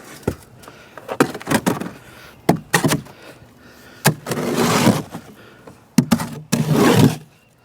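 Mixed concrete being tipped out of its mixing container into a tower foundation hole: a series of sharp knocks, then two longer rough scraping, sliding stretches, one about halfway through and one near the end.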